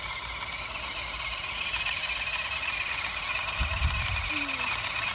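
WPL C24-1 1/16-scale RC truck's stock brushed motor and gears whining steadily as it drives through long grass, with a short low bump about three and a half seconds in.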